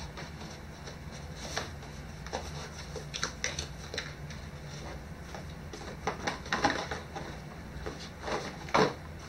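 Cardboard packaging and drone batteries being handled and set down: scattered light knocks, scrapes and rustles over a steady low hum, with a cluster about six to seven seconds in and the loudest knock near the end.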